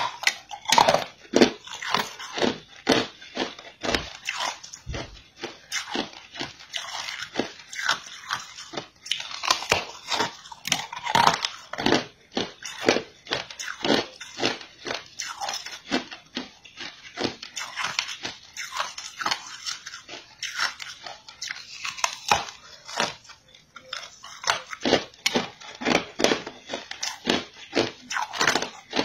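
Biting and chewing a green frozen ice bar: a long run of crisp ice crunches, a few a second, unevenly spaced.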